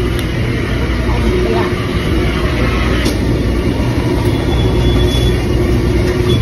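Steady loud rumble of a moving train heard from on board the car, with a thin high whine briefly about two thirds of the way through.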